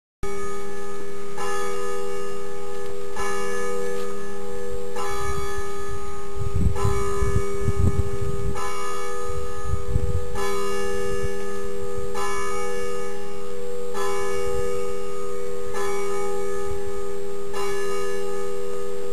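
Bells ringing in a slow, even toll, struck again about every two seconds, with low rumbling between about six and ten seconds in.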